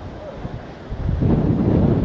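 Wind buffeting the microphone, a gust swelling much louder a little over a second in.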